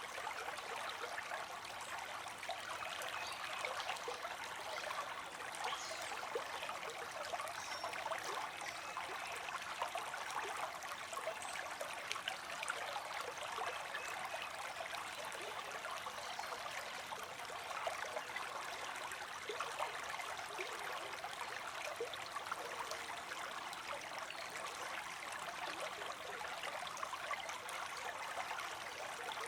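Creek water streaming and babbling over stones, a steady, even rushing with small splashes and trickles.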